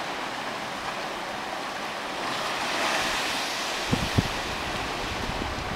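Sea water washing and surging, swelling about three seconds in, with a few low knocks of wind on the microphone shortly after.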